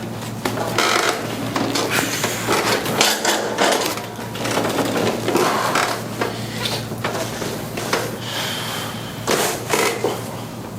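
Irregular knocks, thuds and rustling as a patient turns over onto his back on a chiropractic table and is moved into position.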